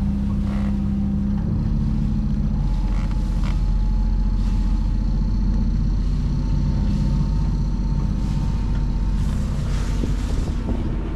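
Sailing yacht's 140 hp Volkswagen marine diesel engine being throttled up from 1,200 to about 1,800 rpm, cruising revs for the boat. It gets a little louder over the first few seconds, then runs steadily under way.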